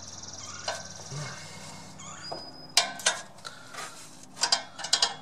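Sharp small metal clicks and clinks from hand cutters worked at the zip ties on a compressed exhaust flange spring, a few scattered clicks about three seconds in and a quicker cluster near the end.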